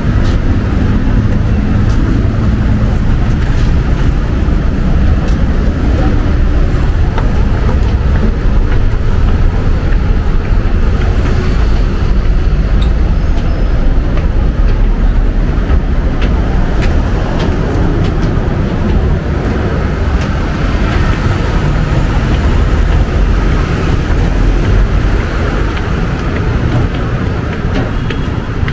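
Heavy road traffic on a busy multi-lane avenue: a steady, loud rumble of passing cars and buses.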